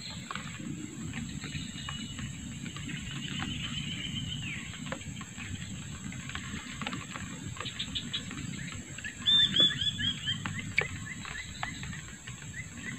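Marsh wildlife over a low rumble: a steady high insect drone, and an animal's quick run of about six chirping notes a little over nine seconds in, with more chirps near the end.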